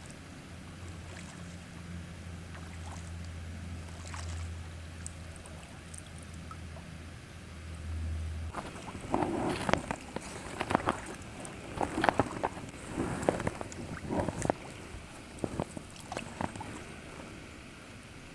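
Kayak paddling: a run of irregular sharp water splashes and knocks from the paddle strokes for about eight seconds. These follow a low steady hum that cuts off about halfway through.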